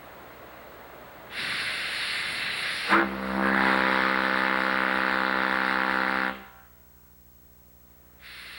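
American Shipbuilding 8-by-48-inch ship's steam whistle blown on compressed air: air hisses for about a second and a half, then the whistle sounds one deep throbbing bass tone for about three seconds and cuts off. Air begins hissing again near the end.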